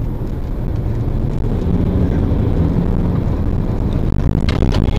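Steady low rumble of a vehicle on the move, engine and road noise, with a couple of sharp clicks near the end.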